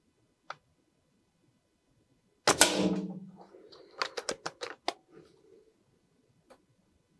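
Reximex Zone PCP air rifle, .22 calibre, fires a single shot about two and a half seconds in: a sharp crack with a brief ring-out. About a second and a half later comes a quick run of about six mechanical clicks as the action is cycled to load the next pellet from the magazine.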